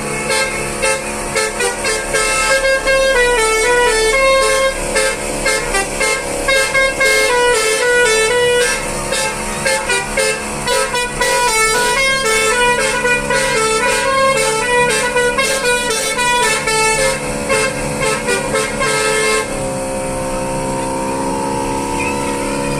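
Basuri telolet air horn on a car playing a fast tune of quick, stepping horn notes. About twenty seconds in the melody stops and a steady chord-like drone carries on.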